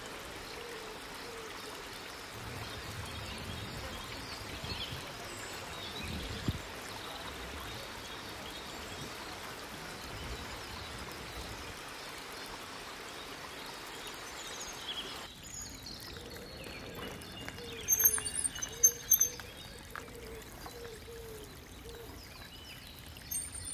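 Steady rush of flowing spring water. About two-thirds of the way through it gives way to quieter outdoor ambience with a few short, high bird chirps.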